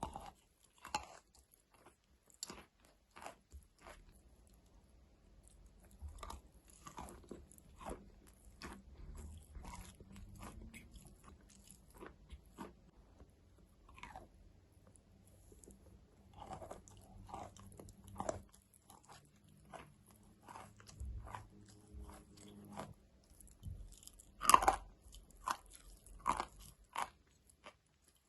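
Close-miked biting and chewing of something hard and dry, crisp crunches coming every half second to a second at an irregular pace, the loudest bite about three quarters of the way through.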